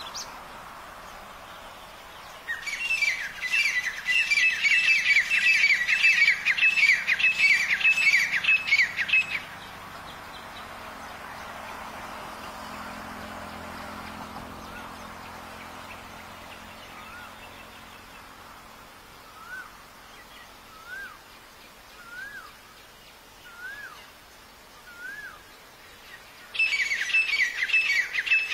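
Black francolins calling: a loud run of rapid, high chattering notes lasting about seven seconds, then a string of soft single rising-and-falling notes about a second and a half apart, and the fast chattering again near the end.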